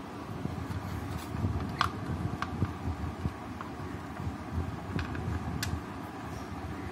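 Small sharp metallic clicks and handling noise as a refrigerator defrost timer is screwed back into its mounting, four or so clicks over a steady low rumble.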